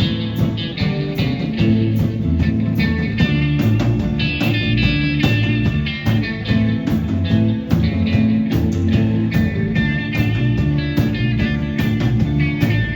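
Live band playing a blues-rock number led by guitar, over a steady drum beat.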